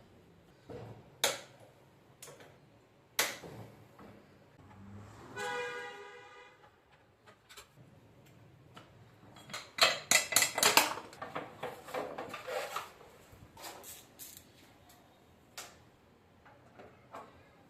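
Tools and metal parts clinking and knocking during a shock absorber repair: scattered single knocks, then a quick run of loud clinks about ten seconds in. There is a brief pitched squeal about six seconds in.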